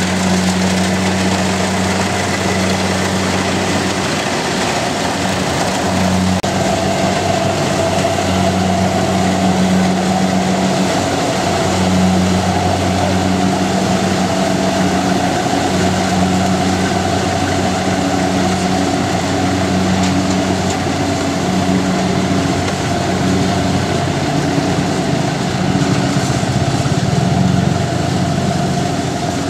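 Large engine running steadily at an even speed, a constant low drone with a higher hum above it.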